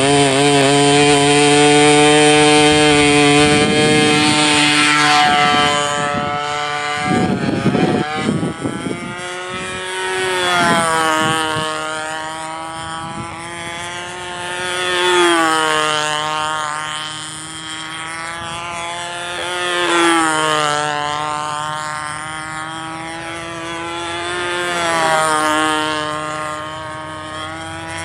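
Small model-airplane engine of a control-line Super Clown running at high speed, steady at first while the plane is held, then flying laps: the sound swells and its pitch bends down each time the plane passes, about every five seconds.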